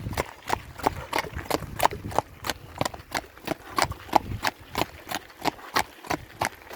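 Horse's hooves clip-clopping in a steady, even rhythm, about three sharp strikes a second.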